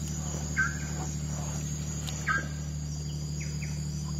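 Band-tailed nighthawks calling: short falling notes, two clear ones about half a second and two seconds in and fainter ones later. Behind them run a steady high-pitched drone of insects and a steady low hum.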